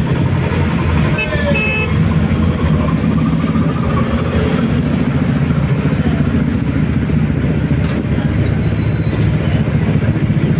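City bus engine running with road noise, heard from inside the cabin as a loud, steady low drone. A brief high squeal comes about a second in.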